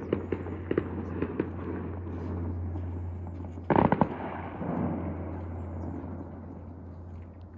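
Fireworks going off: a run of small sharp pops in the first second and a half, then a loud burst of bangs a little before the middle that dies away in an echo.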